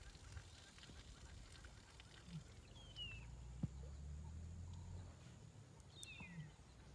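Quiet outdoor ambience near silence: a bird gives a short falling chirp about three seconds in and again near the end, over a faint low rumble.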